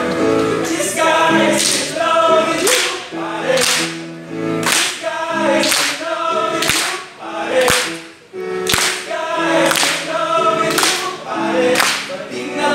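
Men's vocal ensemble singing a pop song a cappella in close harmony, over a sharp percussive beat about once a second.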